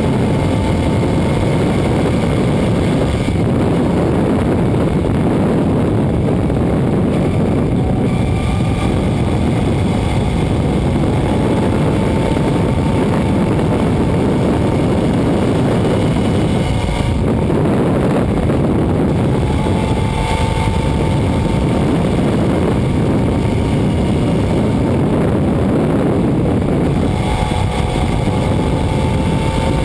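Suzuki SV650's V-twin engine running at road speed under heavy wind rush on the bike-mounted microphone, its pitch drifting gently up and down.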